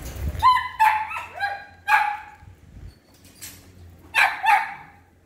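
Italian greyhound puppy barking in short, high yips: a quick run of about five in the first two seconds or so, then two more about four seconds in.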